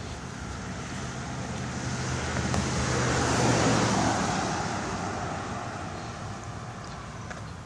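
A pickup truck driving past on the street: tyre and engine noise swelling to a peak about three and a half seconds in, then fading away.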